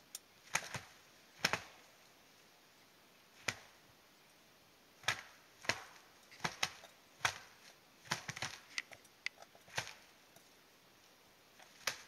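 Male western capercaillies at a lek giving the sharp, dry clicks of their display song, about twenty irregular clicks with a quicker run past the middle.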